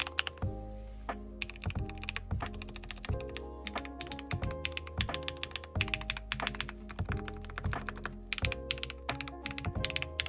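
Fast, continuous typing on a Chilkey ND75 mechanical keyboard with Gateron Smoothie switches and PBT keycaps, keystrokes clacking irregularly several times a second. Background music with held notes plays underneath.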